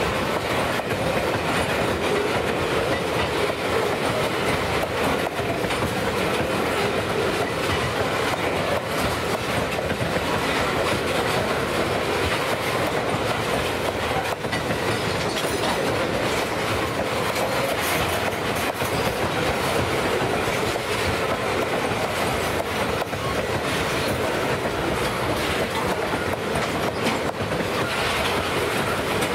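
Freight cars of a long train rolling past at steady speed, a continuous rumble and rattle with the wheels clicking over the rail joints.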